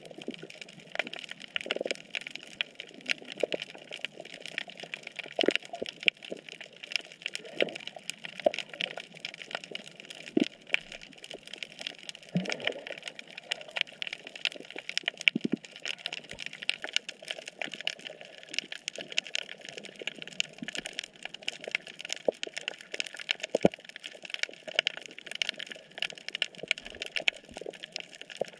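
Underwater reef ambience: a dense, constant crackle of tiny clicks and pops, typical of snapping shrimp, with a few scattered lower knocks.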